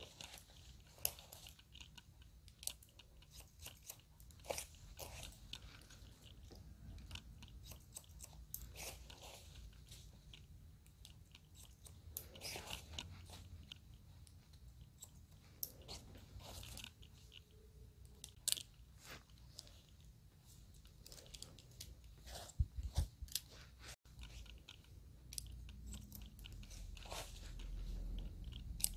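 Hair-cutting scissors snipping through the ends of long hair in irregular, crisp cuts during a base cut. A steady low hum runs underneath.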